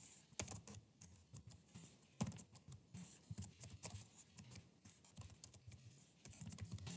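Faint typing on a computer keyboard: irregular quick keystrokes as CSS margin properties are typed in.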